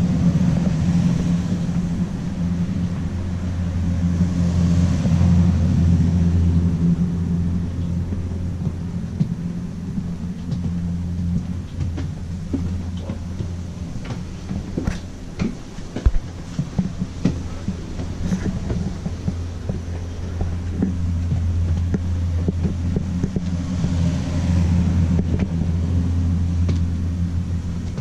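A steady low hum or rumble, with scattered light clicks and knocks in the middle and brief swells of hiss near the start and near the end.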